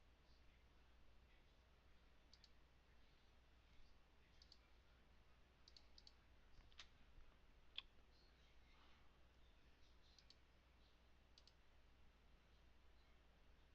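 Faint computer mouse clicks, scattered and irregular, several in quick pairs like double-clicks, the sharpest about eight seconds in, over a low steady hum.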